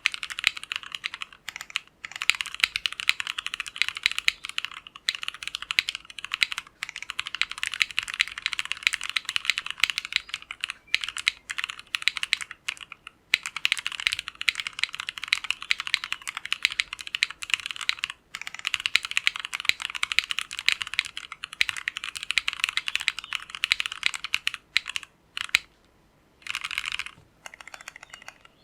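Typing on an Ozma60 mechanical keyboard with Tecsee Jadeite linear switches, a polycarbonate plate and a tape mod: a fast, continuous patter of keystrokes with a few brief pauses.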